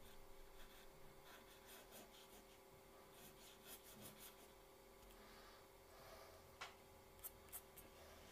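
Faint scratching of a mechanical pencil drawing short strokes on paper, with a few light clicks near the end.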